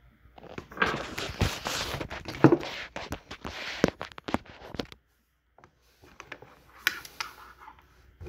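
Scraping, rustling and clicking as a spinning reel on a fishing rod is handled and moved about on a wooden tabletop close to the microphone. The sound is densest in the first half, then thins to scattered clicks and knocks.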